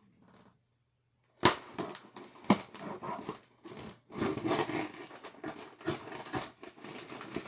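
Tiny screwdriver prying and scraping at a taped cardboard box to force it open. Two sharp cracks come about a second and a half and two and a half seconds in, then a run of scraping and crackling cardboard.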